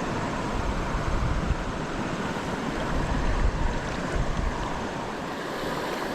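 Creek water running, with wind buffeting the microphone as a low rumble that eases after about four and a half seconds.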